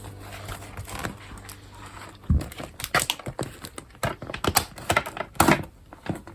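Small hard objects handled on a desk: irregular clicks, taps and knocks with a little crinkling of packaging, the loudest knocks about two and a half seconds in and again near five and a half seconds.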